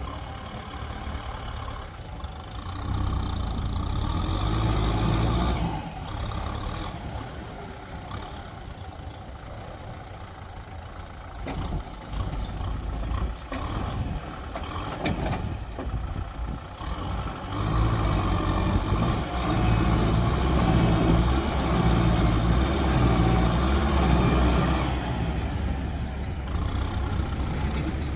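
Heavy diesel engines working under load as a tractor pushes a truck stuck in mud, revving up in long surges a few seconds in and again for most of the second half.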